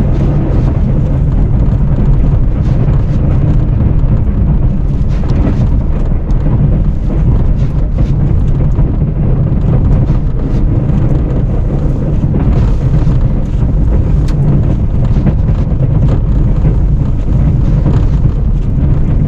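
Snowplow pickup truck's engine running steadily as it drives, a low drone with wind noise over it.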